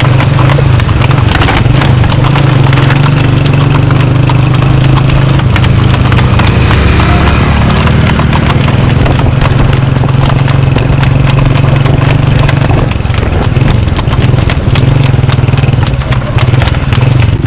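Harnessed cart horse trotting fast on a paved road, its hooves clip-clopping in a quick, steady beat over a loud, steady low drone.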